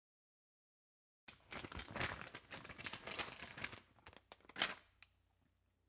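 Crackling sound effect of an animated channel-logo intro: it starts about a second in as a dense crackle, thins into scattered clicks, and ends with one short louder rush near the end.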